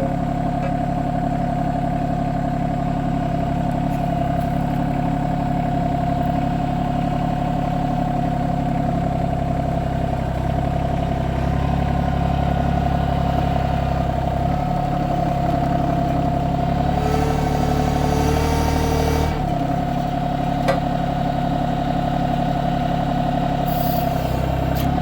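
Branson 2505h compact tractor's diesel engine running steadily. For about two seconds, roughly three-quarters of the way through, a hiss and a higher whine join the engine as the hydraulics are worked to line up the backhoe.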